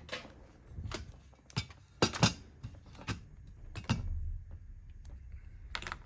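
Hands handling a cut vinyl decal on transfer tape: a string of irregular sharp clicks and light crinkles, the loudest about two seconds in.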